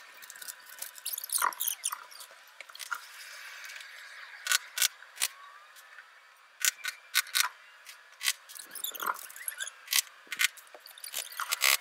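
Sped-up time-lapse audio of shingle roof work: a string of sharp knocks at uneven intervals, with high, squeaky warbles between them.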